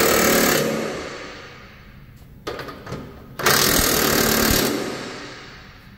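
Cordless impact wrench hammering blade nuts tight onto mower deck spindles in two short bursts, one right at the start and a longer one about three and a half seconds in. A couple of clicks come between them.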